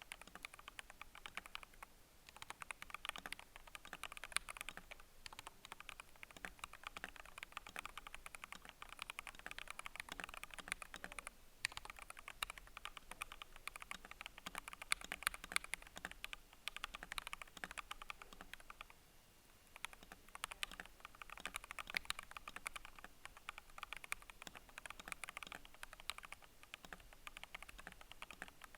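Typing on a custom MKB87 TKL hot-swap mechanical keyboard fitted with lubed and filmed Alpaca V2 linear switches and PBT keycaps: a steady run of keystroke clacks. The typing stops briefly three times.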